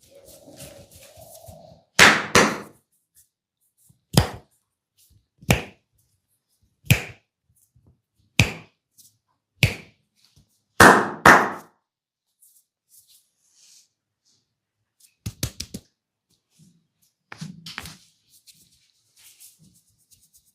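Percussive massage strikes from a masseur's hands: about nine sharp slaps at an even pace, roughly one every second and a half, the loudest landing as quick doubled blows. Near the end come two short runs of quick small clicks.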